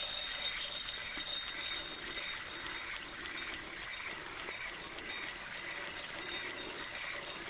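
Fishing reel being wound in, a fine clicking with a rhythm of about two handle turns a second.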